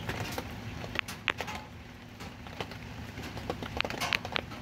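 A rooster pecking at and bumping against the phone at close range: scattered sharp taps, two about a second in and a quicker cluster of three near the end, over a low steady rumble.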